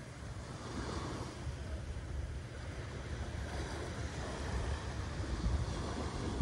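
Small waves breaking and washing up a sandy beach in a steady wash, with wind rumbling on the microphone.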